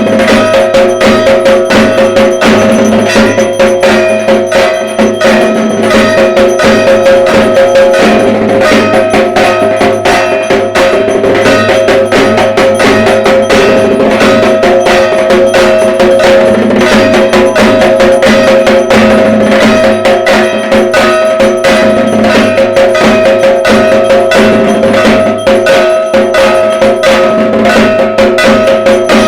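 Dhak, the large Bengali barrel drum of Durga Puja, beaten in a fast, nonstop rhythm of dense strokes, with a steady metallic ringing over it.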